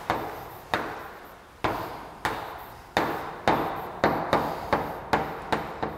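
Chalk tapping and scraping on a blackboard as an equation is written out: about a dozen sharp taps at uneven spacing, coming closer together in the second half.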